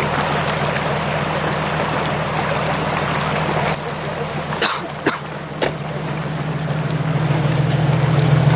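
Off-road 4x4 engine running hard under load while its wheels spin in deep snow, with a steady hiss of churned snow. A little past halfway the hiss drops and there are three sharp knocks, then the engine grows louder toward the end.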